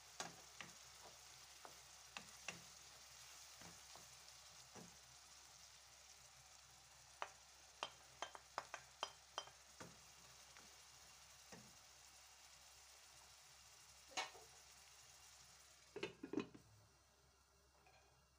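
Chopped onions frying faintly in oil in a pan, a steady sizzle. The wooden spoon stirring in green peppers gives a quick run of light taps against the pan. Near the end a glass lid knocks down onto the pan, and after that the sizzle is quieter and duller.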